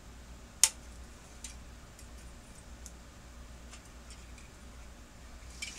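Scissors snipping a plastic kit part off its sprue with one sharp click about half a second in, followed by a few faint ticks and clicks of plastic being handled.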